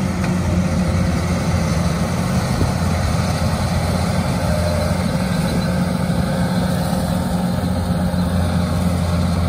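Kubota DC-93 rice combine harvester running steadily while it cuts and threshes the last row of rice: a constant low diesel hum over the clatter of the threshing works.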